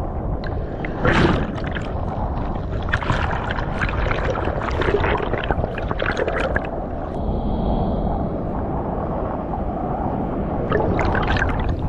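Water on a surge-washed reef, heard with the camera underwater: a steady low rumble with dense crackling and bubbling.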